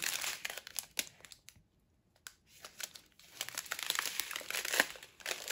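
Plastic packets of diamond painting drills crinkling and crackling as they are handled, with a pause of about two seconds in the middle.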